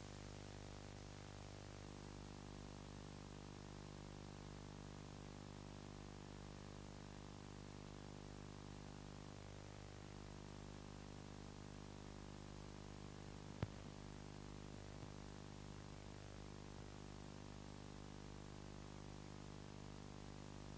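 Faint steady electrical hum with its overtones, plus tape hiss: the empty sound track of a video recording made without sound. A single sharp click about two-thirds of the way through.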